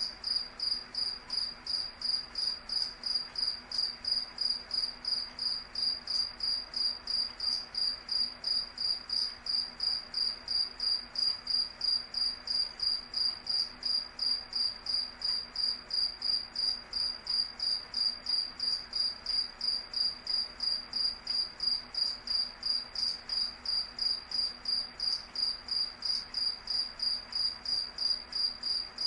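Cricket chirping steadily, a high-pitched chirp repeated evenly about three times a second.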